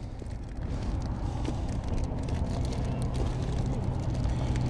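Low, steady engine rumble of a passing motor vehicle, growing louder from about a second in, with a few faint small clicks.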